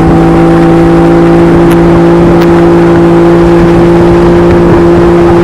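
An engine running steadily at a constant speed, loud and close, its low drone holding one pitch over a rushing noise.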